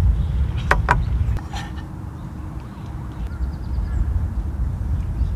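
Low rumble throughout, with two sharp metallic clinks about a second in as a metal spoon knocks against an open tuna can while scooping out the tuna.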